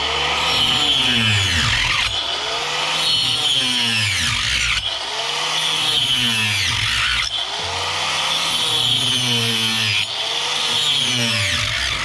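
Electric power tool motor spinning up and slowing down again and again, in short stretches of a couple of seconds each.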